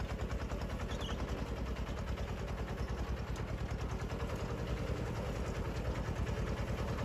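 Engine of a small two-wheel walking tractor running steadily under load with a fast, even pulsing beat, as it drags a two-disc plough through hard, dry soil.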